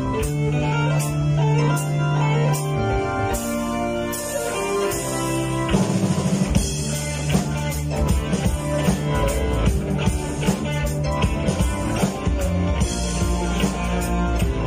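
Live rock band playing: electric guitars, keyboard and drum kit. Held chords ring for the first few seconds, then about six seconds in the drums come in and the band plays a driving beat.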